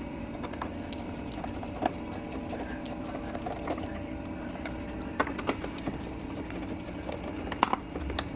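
A screwdriver undoing the T20 Torx screws on a plastic air intake duct: a few scattered light clicks and ticks over a steady low background hum.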